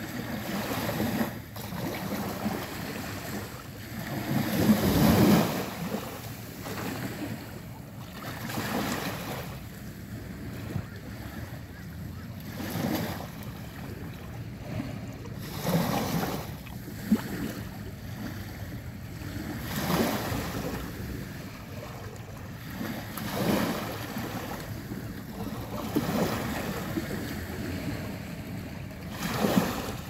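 Small waves washing up onto the shore close by, each one swelling and falling back about every three to four seconds, the loudest about five seconds in.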